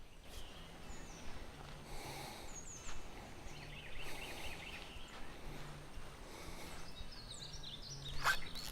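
Quiet outdoor ambience with scattered faint bird chirps and calls, and a couple of sharp clicks near the end.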